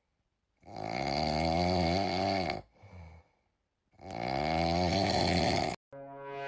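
A drawn-out vocal sound with a wavering pitch, about two seconds long, heard twice the same way, each time followed by a short, softer breath-like sound.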